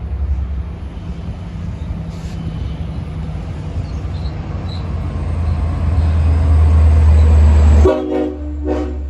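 LIRR DE30AC diesel locomotive No. 408 rumbling as it approaches, growing steadily louder. Near the end its horn sounds two short blasts.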